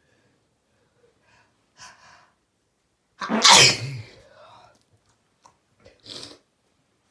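A person with a cold sneezing: a quick breath in about two seconds in, then one loud sneeze a second later that trails off, and a short breath near the end.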